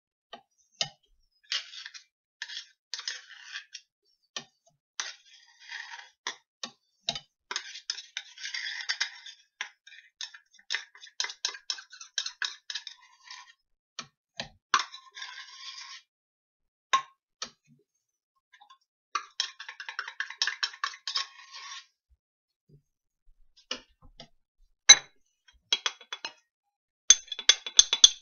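A metal knife scraping and tapping peanut butter off a measuring cup into a stainless steel mixing bowl, in irregular clicks and scrapes with short pauses. Near the end, a quicker run of sharp clinks as a utensil scrapes a bowl's contents into the mixing bowl.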